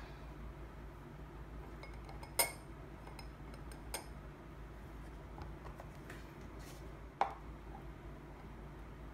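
Metal spoons and a wire whisk clinking against a small glass bowl as honey is stirred into an olive oil and lemon dressing. There are three clear ringing clinks, the loudest about two and a half seconds in, with a few lighter taps between them.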